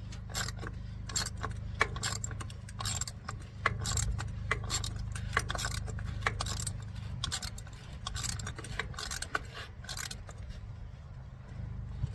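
Ratchet clicking in short irregular runs as the plastic oil filter cartridge housing of a 2010 Toyota Prius is tightened with a fluted cap socket. A steady low hum runs underneath.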